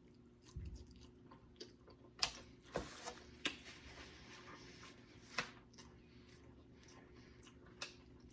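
Quiet chewing and mouth sounds while eating stewed neck bones: scattered wet clicks and smacks at irregular intervals.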